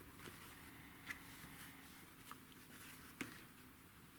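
Near silence: room tone, with a few faint, brief clicks, the clearest about three seconds in.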